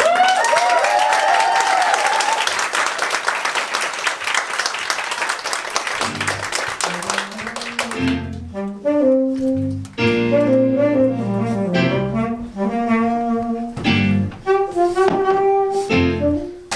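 Big-band show-tune music: a loud finish with a cymbal-heavy wash and a shouted whoop, then, about halfway through, a jazzy passage of saxophone and brass over a walking bass line.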